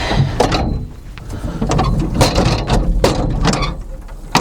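Irregular metal clanks, knocks and scrapes as a heavy steel part of a wood chipper is lifted and worked into position on a new hinge.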